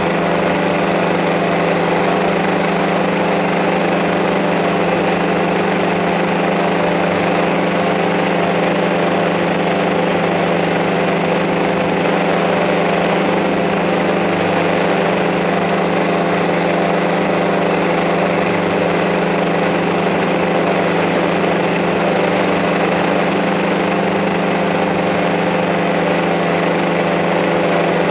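Small multirotor drone's electric motors and propellers running at a steady hover, a constant buzzing hum that holds one pitch.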